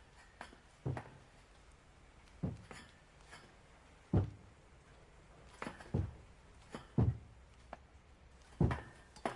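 Slow, heavy footsteps on a hard floor: separate thuds about a second or more apart, with fainter taps in between.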